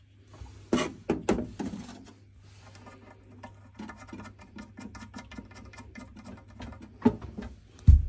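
Hand handling at the boiler's expansion vessel and Schrader valve: a few knocks, then a rapid run of small scratching clicks, several a second, and two sharper knocks near the end.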